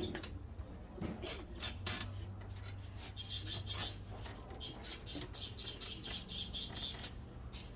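Pet birds chirping and chattering in quick, high-pitched bursts, busiest in the second half, over a low steady hum.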